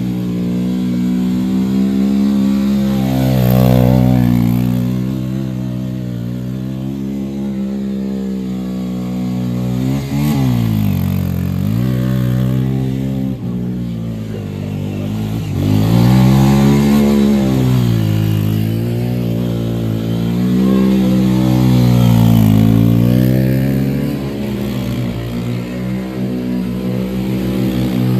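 ATV engine running and being revved up and down, its pitch sagging low about ten seconds in and then rising and falling several more times.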